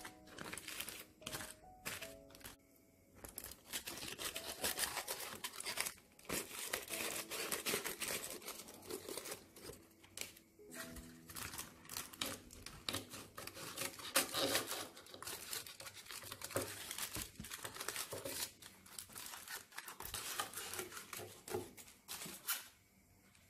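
Aluminium foil crinkling and rustling in irregular bursts as a foil packet is pulled open and flattened out, with soft background music behind.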